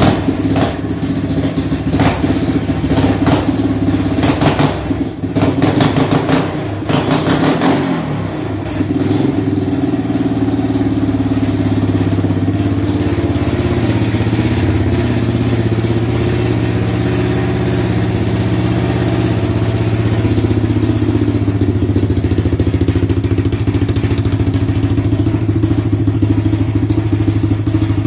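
A 1983 Yamaha 200 three-wheeler's single-cylinder four-stroke engine is revved in several short throttle blips over the first eight seconds, then settles to a steady idle.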